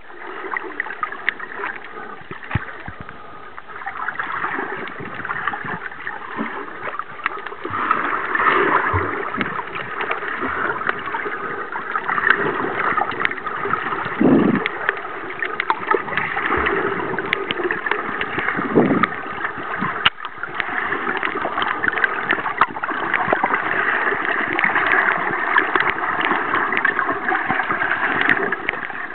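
Water noise heard through a camera held underwater: a steady rushing hiss dotted with many small clicks and crackles, with two louder gurgles about halfway through.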